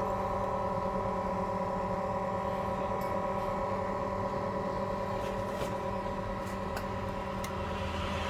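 Steady hum of an LCD separator machine's vacuum pump, holding the screen down on the heated tray by suction, with a few faint ticks in the second half.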